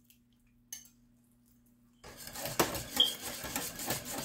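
Near silence for about two seconds, then a wire whisk clattering and scraping against the inside of an enamelware soup pot, stirring a butter-and-flour roux into the soup to thicken it.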